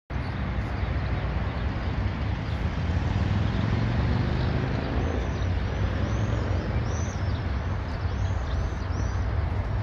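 Outdoor city ambience: a steady low rumble of distant road traffic, with a run of short high-pitched chirps from about five seconds in.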